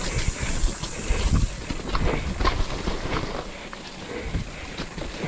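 Mountain bike descending a rough dirt trail at speed: tyres rumble over dirt and roots, and the bike rattles with many short knocks and clicks.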